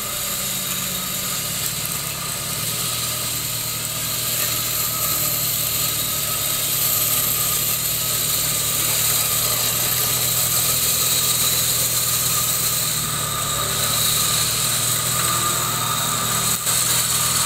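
Off-road jeep's engine running steadily while its front winch pulls it forward out of a hollow, with a steady whine over the engine note; it grows a little louder as the jeep comes closer.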